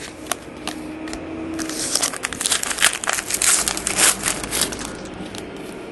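Dense crinkling and crackling of plastic trading-card packaging being handled and torn open. It starts with scattered crackles and is busiest in the middle, then thins out near the end.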